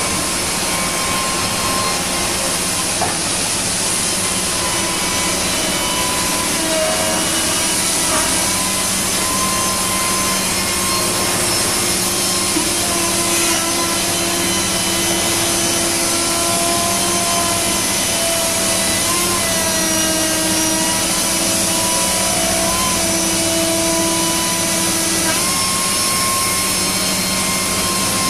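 High-speed router spindle on a robot arm trimming a moulded plastic part: steady, loud running with a whine whose pitch dips and shifts as the cutter loads in the plastic.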